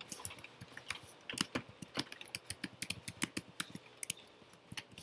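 Typing on a computer keyboard: an irregular run of key clicks, with a short pause near the end.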